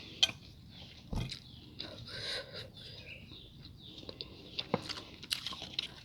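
A person eating close to the microphone: chewing, with scattered short crunches and clicks.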